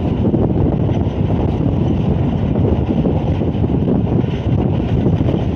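Loud, steady wind rushing past the open window of a moving Pakistan Railways passenger train, buffeting the microphone over the train's running noise.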